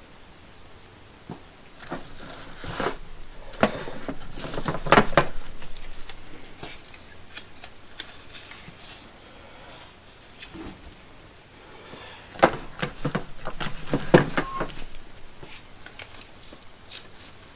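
Ratchet straps being handled and packed into their storage bags: rustling and clicking in two spells, from about two seconds in and again from about twelve seconds in.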